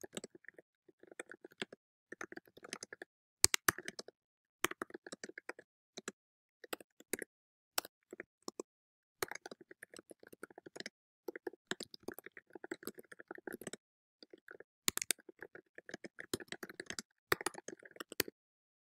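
Typing on a computer keyboard: bursts of quick key clicks separated by short pauses, a few strokes louder than the rest.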